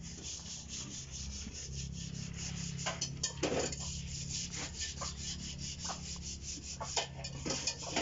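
Electric water pump running: a steady motor hum under a fast, even rasping rhythm, with a louder knock about three and a half seconds in.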